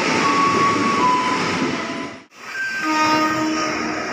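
KRL commuter electric train, an ex-Japanese EMU, running alongside the platform: steady wheel-and-rail rumble with short, stepped whining tones from its motors. The sound cuts out sharply about halfway through and comes back with the train still running.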